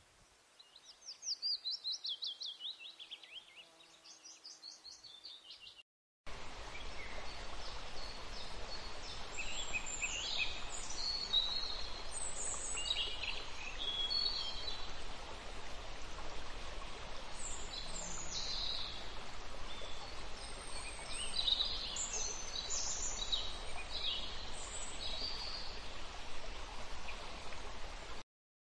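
A small songbird's rapid, chattering trill that falls in pitch. After a brief gap comes a steady rushing hiss with scattered high chirps and calls from several birds.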